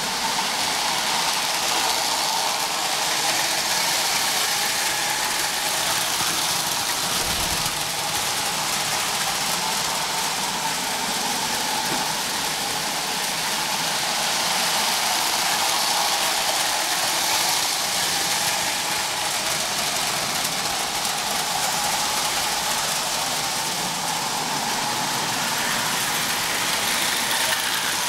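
O-gauge toy electric trains running on three-rail tubular steel track: a steady whir of their motors and rumble of wheels on the rails.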